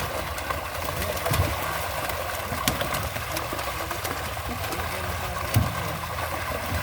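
A small engine running steadily under water noise, with a few short clicks and a knock about five and a half seconds in.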